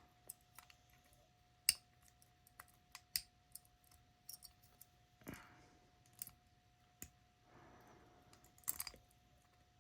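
Metal pick and shaved-down key clicking and scraping inside a four-lever lever lock as its levers are worked, in irregular sharp clicks with a few short scrapes. A faint steady hum runs underneath.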